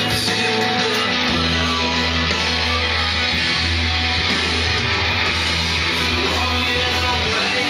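Heavy rock music with electric guitar over a held low bass note.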